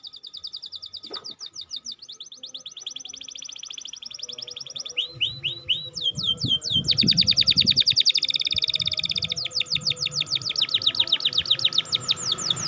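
Domestic canary singing a fast chirping song: a run of rapid trills of quickly repeated high notes, switching from one trill to another every second or two and getting louder about halfway through.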